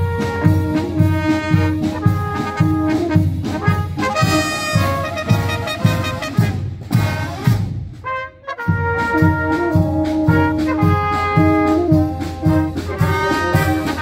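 Brass music with a steady beat in the bass, breaking off briefly about eight seconds in before starting again.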